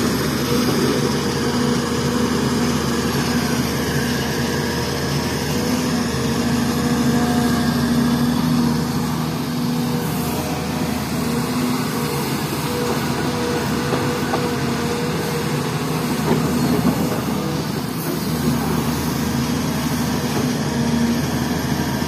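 SDLG E6210F crawler excavator's diesel engine running steadily under working load, with a continuous mechanical drone, while the machine digs and swings buckets of soil.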